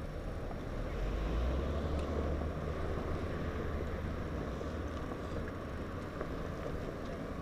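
Wind rumbling over the microphone of a camera riding on a moving bicycle, with steady road noise beneath; the rumble swells for a couple of seconds about a second in.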